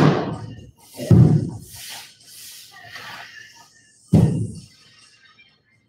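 Plyo box being moved across a gym floor: three heavy thuds, one at the start, one about a second in and one about four seconds in, with scraping and rustling between the first two.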